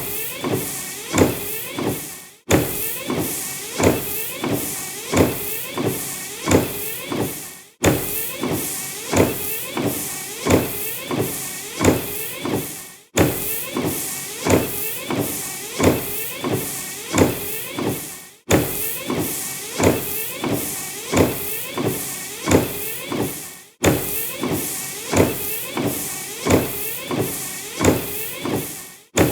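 Car windshield wipers sweeping back and forth across the glass in a steady rhythm, a stroke a little under once a second. The sound breaks off briefly about every five seconds and starts over the same way.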